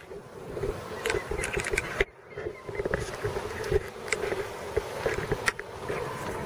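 Distant personal watercraft engine droning steadily at high revs as it drives a flyboard's water jet, with wind rumbling on the microphone.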